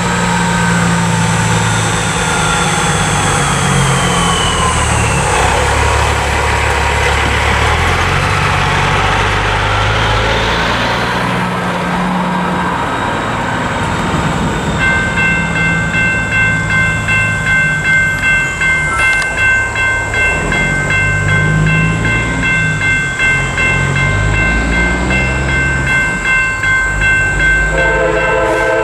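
A truck drives past with a rushing road noise and engine rumble. About halfway in, the crossing's NEG electronic bells start up, ringing a steady, rapidly repeating electronic tone. Near the end a diesel locomotive horn starts to sound.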